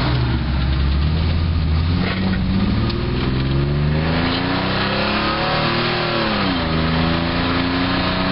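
A 1993 Chevy S10 Blazer's six-cylinder engine, breathing through headers and a 3-inch stainless true Y-pipe exhaust with catalytic converter and muffler, accelerating hard, heard from inside the cab. The engine note climbs steadily in pitch, drops sharply about six and a half seconds in as the transmission upshifts, then holds steady.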